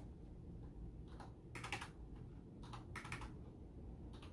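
Computer keyboard being typed on: short bursts of keystrokes entering numbers into fields, with clusters about one and a half and three seconds in.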